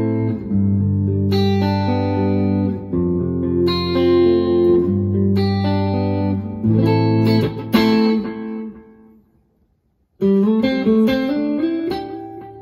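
Electric guitar played with a clean tone and chorus through a Valeton GP-200 JR multi-effects processor: ringing chords and arpeggiated notes that fade out to silence about nine seconds in. A new phrase of picked notes starts about a second later and dies away near the end.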